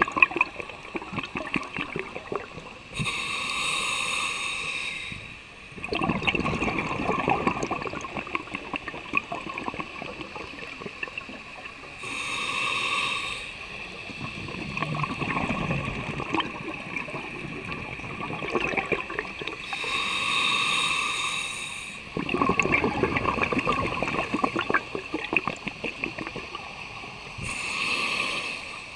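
Scuba diver breathing through an open-circuit regulator underwater: a hissing inhale about every eight seconds, four in all, each followed by a longer bubbling rush as the exhaled air leaves the regulator.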